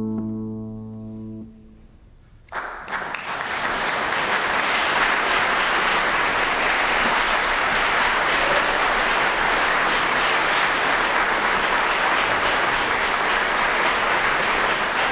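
The final chord of a classical guitar rings and is damped about a second and a half in. After a brief hush, an audience bursts into applause that carries on steadily.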